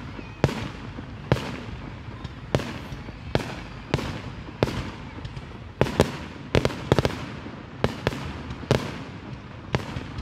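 Aerial firework shells bursting one after another: a sharp bang about every half second to a second, with echoing tails, and the bangs bunching closer together a little past the middle.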